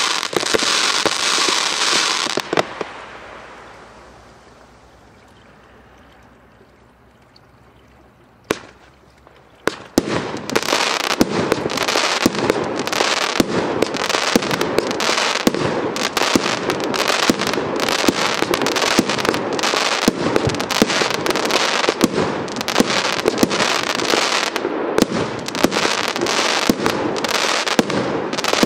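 Multi-shot consumer firework cake firing. It opens with a loud spell of hissing crackle that dies away into a lull of a few seconds. One sharp bang follows, and from about ten seconds in comes a fast, unbroken barrage of shots and crackling bursts.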